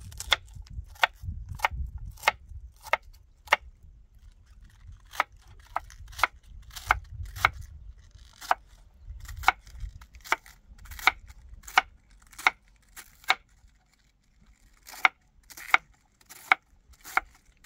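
Kitchen knife slicing a cabbage head on a wooden cutting board: sharp knocks of the blade on the board, roughly one and a half a second, with two short pauses.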